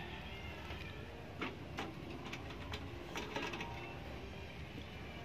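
Avocados being handled and shifted in the stainless steel bowl of a dial kitchen scale: a string of small knocks and clicks, mostly between about one and a half and three and a half seconds in.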